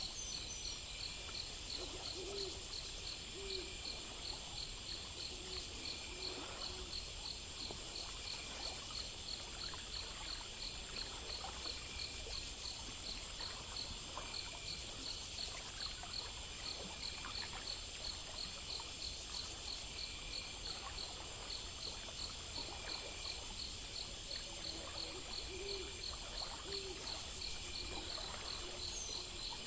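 Night ambience of crickets chirping in steady, evenly pulsing high trills, with an owl giving a short run of low hoots a few seconds in and again near the end.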